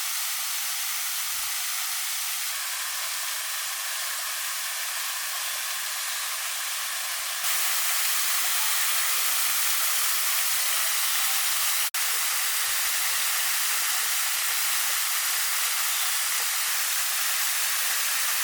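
Rushing water, a loud steady hiss with no pitch to it. It steps up in level about seven seconds in and breaks off for an instant near twelve seconds.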